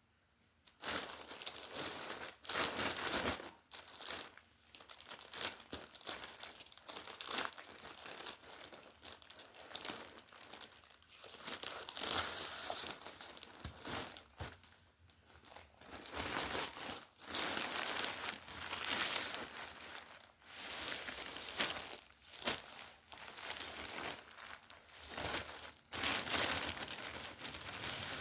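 Packaging being crinkled and torn open by hand in a small room, with irregular rustling and tearing that starts about a second in and keeps going.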